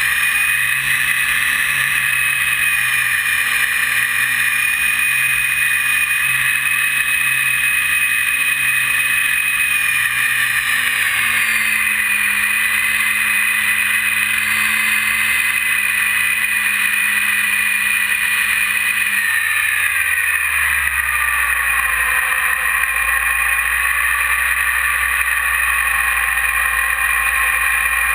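E-flite 480 1020 kV outrunner electric motor and propeller of an RC plane whining steadily, heard from a camera mounted on the plane. The pitch shifts slightly about eleven seconds in, then falls over a couple of seconds around twenty seconds in and holds lower, as the throttle is eased back.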